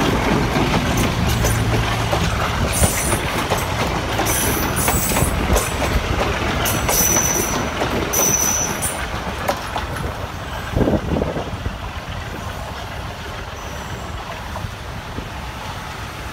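Passenger train carriages rolling past, their wheels rumbling on the rails, with several short high-pitched wheel squeals in the middle. The sound fades as the train draws away.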